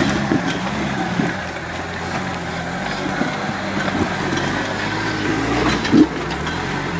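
Lifted Jeep Wrangler YJ's engine running slowly under load as it crawls over boulders, its low hum wavering in pitch. A single sharp knock sounds near the end.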